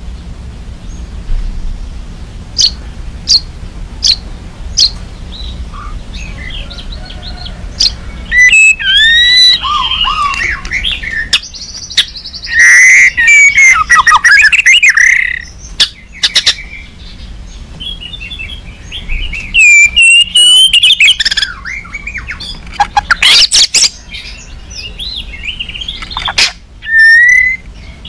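White-rumped shama (murai batu) in agitated song. It starts with scattered sharp ticks, then about eight seconds in breaks into loud rising and falling whistles and warbles, mixed with harsh rattling notes.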